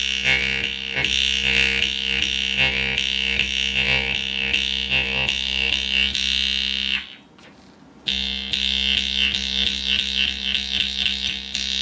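Khomus (Yakut jaw harp) played into a microphone: a steady low drone with bright overtones shifting in a quick plucked rhythm. It breaks off about seven seconds in for about a second, then starts again.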